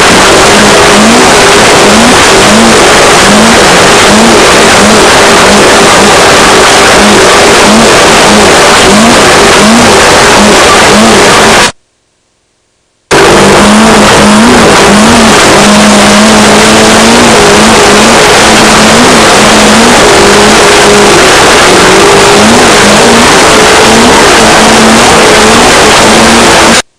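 Off-road race car engine at speed, its revs rising and falling again and again under a heavy, overloaded rush of wind and terrain noise picked up by a camera mounted on the car. The sound cuts out completely for about a second around the middle.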